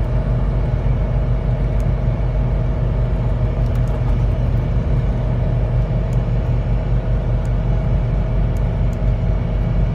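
Dodge Ram's Magnum V10 engine running steadily under load as the truck climbs a long hill. An even engine drone mixed with road noise.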